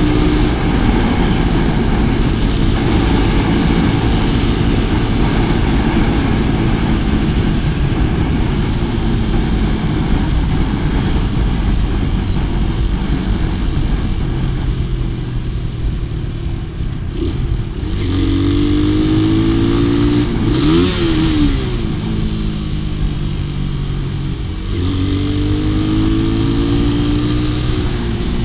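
Suzuki Raider FU150's single-cylinder engine running under way, its pitch rising and falling with throttle and gear changes, with wind noise on the microphone. It goes quieter a little past halfway, then revs quickly up and down about two-thirds of the way through.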